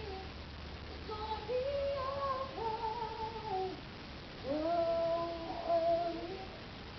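Live singing in a poor-quality recording: long held notes, each about a second, that slide up into and down out of their pitch. The loudest phrase comes about two-thirds of the way through.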